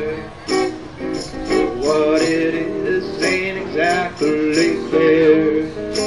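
Acoustic guitar strummed by a street musician, with a steady beat of crisp percussion hits about two or three a second.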